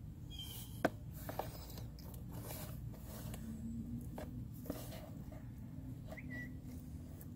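Faint clicks and rustles of hands working inside a plastic engine air box, the sharpest click a little under a second in, over a steady low hum, with a bird chirping near the start.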